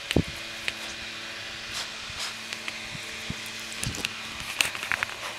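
Pembroke Welsh corgi playing with a soft toy: scattered knocks and clicks, with a heavier low thump just after the start and a quick run of sharper clicks near the end.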